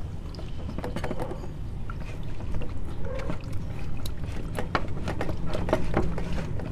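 Steady low rumble with scattered light clicks and knocks from plastic filter housings and the phone being handled.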